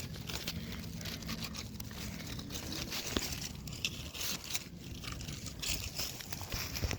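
Scattered crunches and scrapes of a yard decoration's stake being worked into hard ground.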